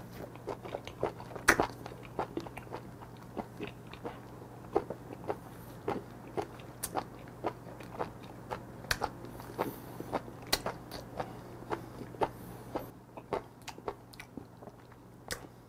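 Close-miked chewing of a mouthful of raw live octopus: a run of sharp wet clicks and smacks, irregular at about two or three a second, thinning out near the end.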